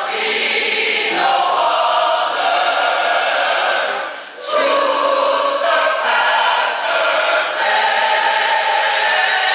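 A choir singing in long held phrases, with a short break for breath about four seconds in.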